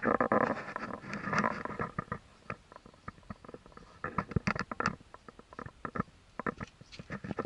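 Handling noise from a handheld camera moved around inside a car cabin: irregular clicks, knocks and rustling, busiest at the start, about a second and a half in, and again from about four seconds in.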